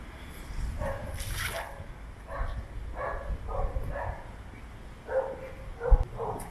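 Dogs barking, a string of short separate barks coming every half second to a second, with a single low thump near the end.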